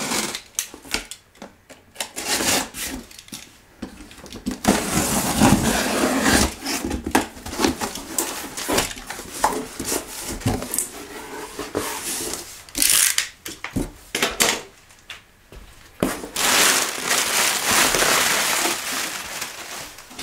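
A cardboard shipping box being cut open and unpacked by hand: packing tape slit and pulled, cardboard flaps folded back, and plastic air-cushion packing crinkling and rustling as it is lifted out. Irregular scrapes and knocks, with a few longer stretches of rustling.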